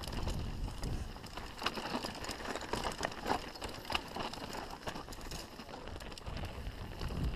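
Canyon Strive enduro mountain bike descending rough rocky singletrack: tyres running over dirt and stones with a steady stream of sharp clicks and knocks from the chain and frame rattling over the bumps, under a constant low rumble of wind on the microphone.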